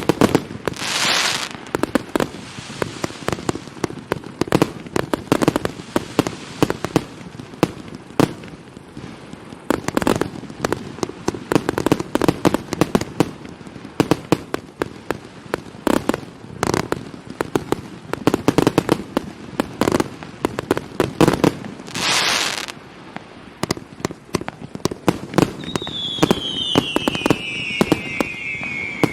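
139-shot fireworks cake firing in rapid, irregular volleys of launch thumps and bursts, with crackling and a few longer hissing rushes. Near the end, falling whistles sound over the shots.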